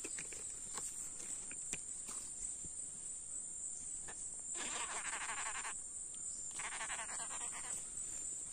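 Steady high-pitched drone of forest insects, with two rasping, finely pulsed bursts of about a second each midway, and a few faint clicks.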